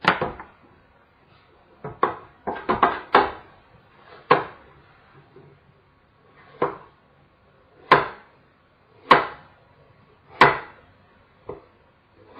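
Kitchen knife cutting apple and knocking on a wooden cutting board: about a dozen separate knocks at an uneven pace, with a quick run of four or five around two to three seconds in.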